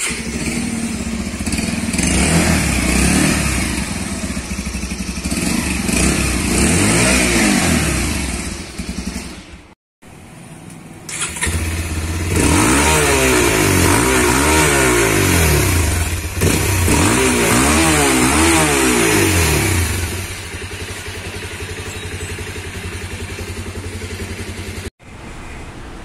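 Bajaj Pulsar single-cylinder motorcycle engines idling and being blipped repeatedly, heard through the exhaust in two separate recordings joined by a cut. Each rev rises and falls in pitch within about a second. In the second recording the engine settles to a steady idle for the last few seconds.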